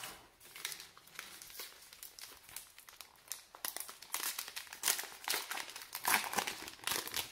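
Plastic wrapper of a 2012 Topps Gypsy Queen baseball card pack crinkling as it is gripped at its crimped seal and pulled open. The crackles are irregular and grow louder after about three and a half seconds.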